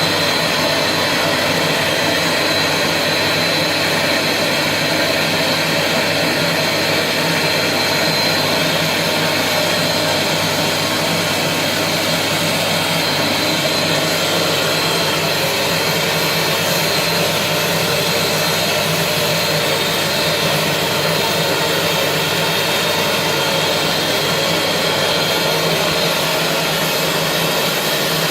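Britex carpet cleaning machine's motor running steadily: a loud even rushing noise with a high whine.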